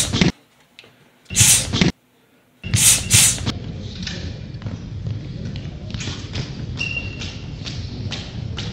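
Boxing gloves striking focus mitts in a large echoing gym, a run of sharp slaps about two or three a second over the room's noise. Before that, three short loud bursts of noise cut in and out abruptly.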